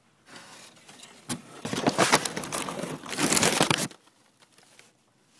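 Brown paper crinkling and rustling. It starts softly, grows loud after about a second and a half, and stops suddenly about four seconds in.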